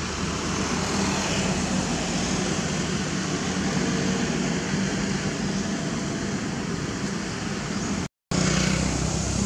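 Steady vehicle engine noise with a constant low hum, cutting out for a moment about eight seconds in.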